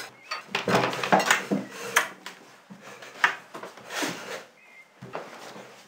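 Dishes and cutlery clattering: a string of irregular clinks and knocks.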